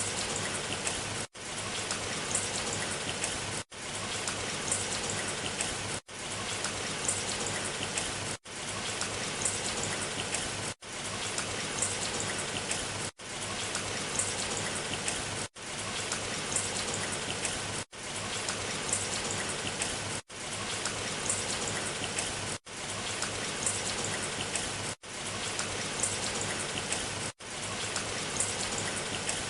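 Steady rain falling, with fine drop ticks. The sound cuts out for an instant about every two and a half seconds and swells back in, as a short recording looped over and over.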